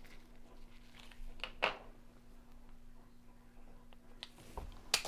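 Quiet handling of a hand micropipette while pipetting reagents: a few soft clicks and a brief rustle, then one sharp click near the end, over a faint steady low hum.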